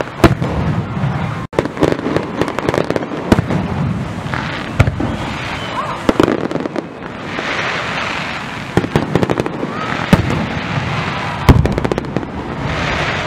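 Fireworks display: aerial shells bursting in many sharp, irregular bangs, some close together, with stretches of hissing noise between them.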